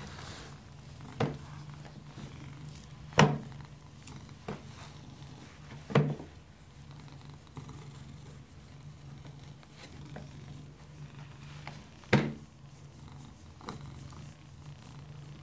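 Domestic cat purring steadily while being stroked. Several sharp knocks cut in over the purr, the loudest about three seconds in and again near the end.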